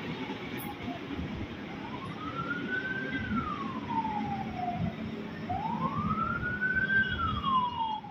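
A siren wailing, its tone rising and falling slowly twice, over the low rumble of an electric commuter train moving past.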